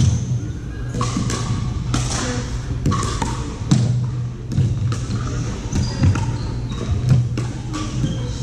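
Pickleball rally: sharp pocks of paddles hitting the plastic ball and the ball bouncing on the hardwood court, about one every second or so, over a steady low hum.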